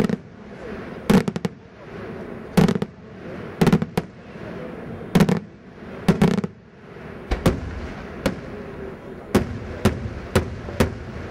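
Daytime aerial fireworks shells bursting overhead, a dozen or so loud bangs about one a second. The first half are deep booms and the later ones sharper, quicker cracks.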